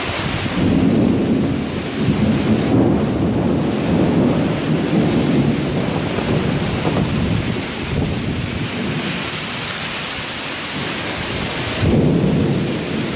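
Heavy rain pouring steadily through a thunderstorm, with thunder rumbling in rolls about a second in and again a few seconds later, and a louder thunder crack near the end.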